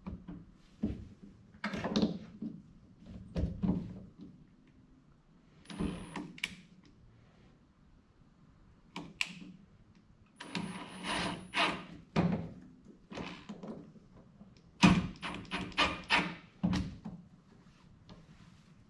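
Cordless drill run in three short bursts, with a steady high whine, as a small pilot hole is drilled into stubborn sheet metal for a gooseneck plug screw. Sharp knocks and clunks of handling come in between.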